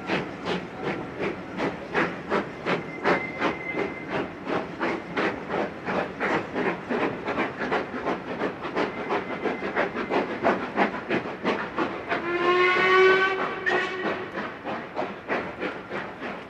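Two steam locomotives double-heading a train working hard as they pull away, their exhaust beating sharply about four times a second. About three quarters of the way in a steam whistle sounds once for about a second and a half.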